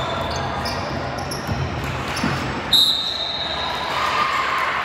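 Basketball game in a gym hall: a ball being dribbled on the court amid general hall noise, with one short, shrill whistle blast just under three seconds in.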